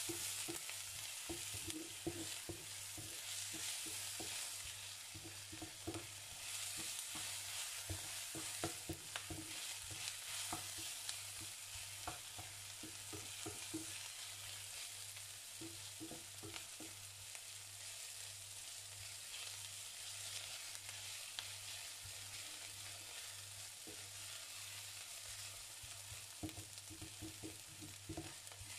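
Chopped onion sizzling in oil in a stainless steel frying pan while a wooden spatula stirs and scrapes it, with frequent small knocks of the spatula against the pan.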